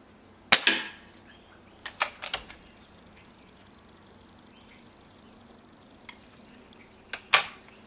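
BSA Meteor Mk II spring-piston break-barrel air rifle fired once about half a second in: a sharp crack with a short ringing tail. A quick run of clicks follows as the barrel is broken open and the spring cocked, then a faint click, and near the end a double click and a loud clack as the barrel is snapped shut.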